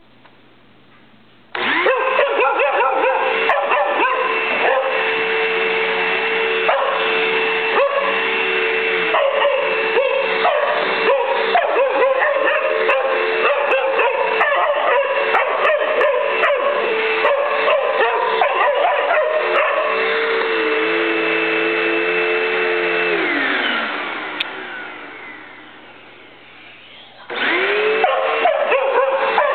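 Vacuum cleaner switched on about a second and a half in and running with a steady whine, while a young black Labrador barks at it over and over. About 23 seconds in the vacuum is switched off and its pitch falls as it winds down; near the end it is switched on again and the barking resumes.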